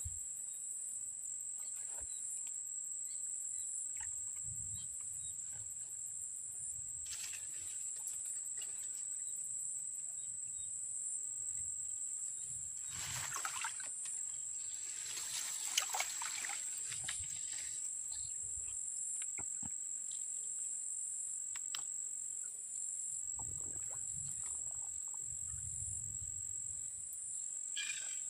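Insects calling in a steady high-pitched drone. Around the middle there is a brief rustling of leaves or handling, and some low rumbles now and then.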